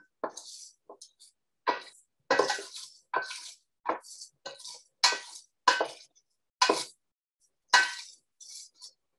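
Wooden spoon stirring ginger and whole spices in a dry stainless-steel pot: about a dozen irregular clinks and scrapes of wood and ingredients against the metal.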